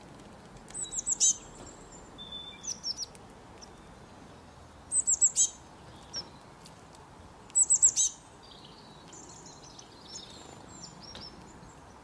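Small songbird calling: three bursts of four quick, high, downward-sliding chirps, about a second in, near the middle and about two-thirds through, with softer twittering between and after.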